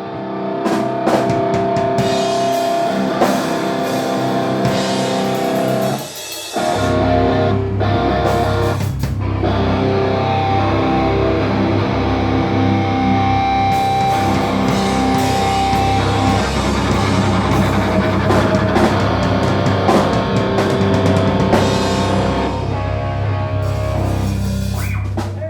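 Loud rock music: guitar chords ring out first, then bass and a drum kit come in heavily about six seconds in. The music stops just before the end.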